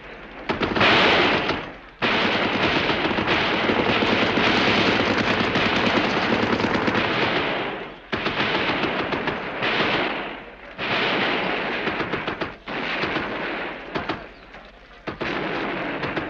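Heavy gunfire: many shots in quick succession in long volleys, with short breaks about two, eight and ten and a half seconds in, and more scattered firing after that.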